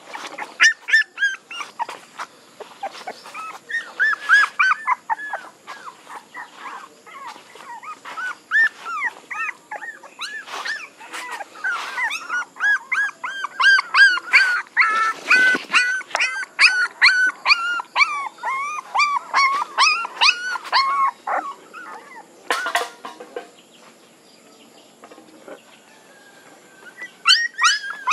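Young puppy whimpering and crying in short, high-pitched, repeated cries, several a second. They die down for a few seconds near the end, then start again.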